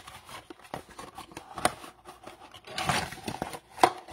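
Hands opening a cardboard trading-card blaster box and pulling out its foil packs: crinkling, rustling and small clicks, with a louder rustle about three seconds in and a sharp click near the end.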